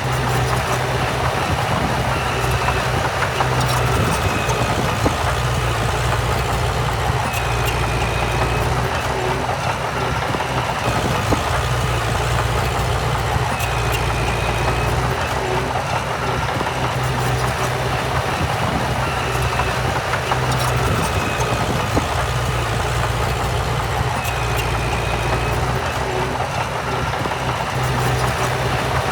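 Heavy diesel earthmoving machinery running steadily with an even low engine hum and a few light clicks. A faint short high whistle recurs about every six seconds.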